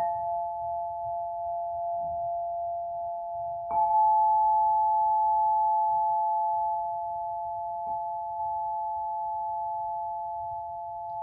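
Crystal lyre's quartz tubes struck with a soft mallet, ringing as two steady pure tones, one a little higher than the other. A fresh strike comes at the start, a louder one about a third of the way in, and a light one about two-thirds in, each renewing the long sustain.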